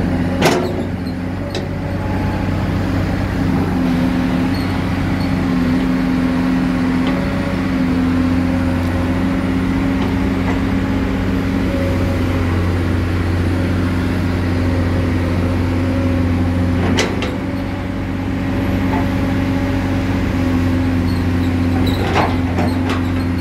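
Komatsu PC200 hydraulic excavator's six-cylinder diesel engine running steadily as the boom, arm and bucket are worked, with a few sharp metallic knocks.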